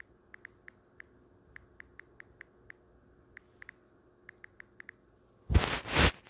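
Key-press clicks from a smartphone's on-screen keyboard as text is typed, short ticks coming several a second in uneven runs. Near the end there is a loud, short burst of noise in two parts.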